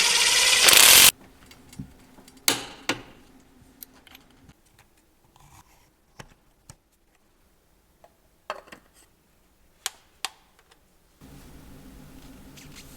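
A loud mechanical noise stops abruptly about a second in. Scattered sharp clicks and clinks of workshop tools follow, and a steady low hum starts near the end.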